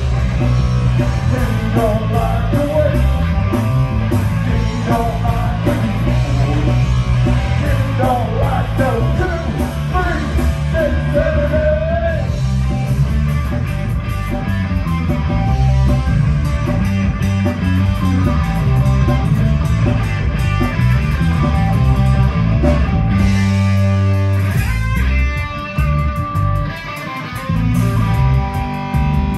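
Live rock band playing loudly: electric guitar, electric bass and drums, with a sung vocal over the first part and instrumental playing after it. Near the end the band thins out briefly to mostly guitar.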